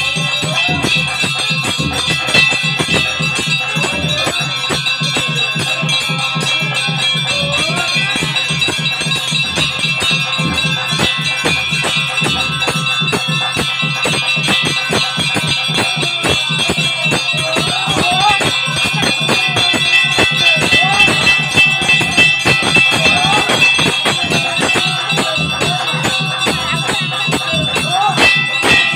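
Temple bells ringing rapidly and without a break over music, the ringing that goes with a pooja.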